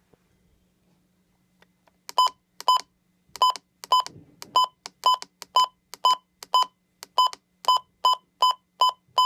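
A weather radio's buttons being pressed again and again, each press giving the same short, high electronic beep, about two a second from about two seconds in, as a location is entered. A faint steady low hum runs underneath.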